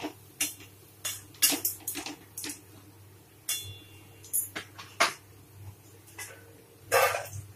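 Metal slotted spoon and wire-mesh skimmer scraping and clinking against a steel kadai while fried battered cauliflower is lifted out of the oil. The strikes are irregular, about one every half second to second, and the loudest, a longer scrape, comes near the end.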